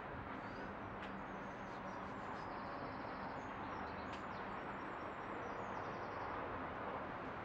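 Birdsong: high chirps and short rapid trills over a steady background hiss.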